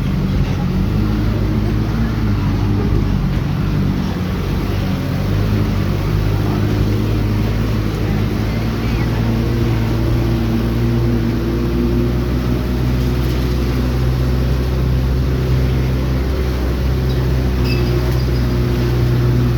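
A motor vehicle's engine running steadily, with road noise; the engine's hum holds an even pitch.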